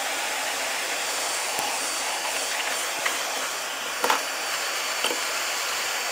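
Hot air gun blowing a steady rush of air to heat a motherboard. A few light knocks come in the second half as the circuit board is handled and tilted.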